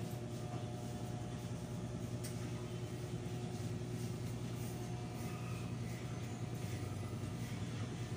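Corded electric hair clippers buzzing steadily as they cut a customer's hair.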